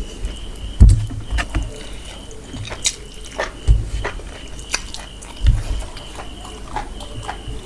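A person eating mutton and rice, chewing with wet mouth clicks and smacks, with a few low thumps, the loudest about a second in. A faint steady high whine runs underneath.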